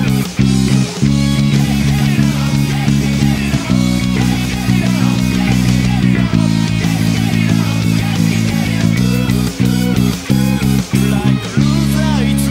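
Electric bass played fingerstyle, a driving line of sustained low notes over a loud rock band recording with distorted guitars.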